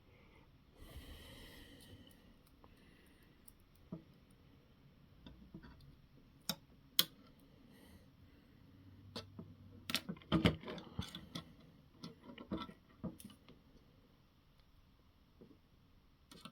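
Small RC car parts clicking and knocking as the rear axle's suspension links are handled and fitted to the chassis: scattered sharp clicks, busiest about ten to thirteen seconds in.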